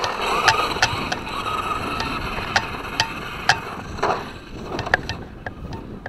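Traxxas Slash 2WD RC truck running over gravel: a scraping rush with about a dozen sharp, irregular clicks of stones.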